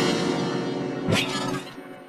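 Cartoon soundtrack music with held, fading notes, broken by one sharp crash about a second in. The sound then dies down almost to quiet near the end.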